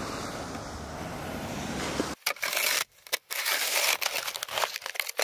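Snow being scraped and shoved off a motorhome's roof, with irregular crunching, scraping strokes from about two seconds in. Before that, a steady rushing noise cuts off abruptly.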